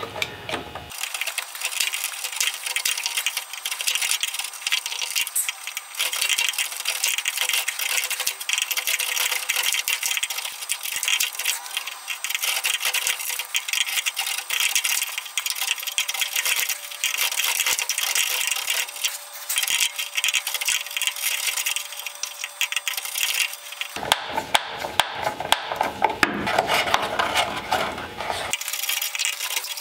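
Steel chisel paring and scraping wood in a groove, a steady run of quick, dry scraping strokes. Near the end there is a louder stretch of knocks and rubbing.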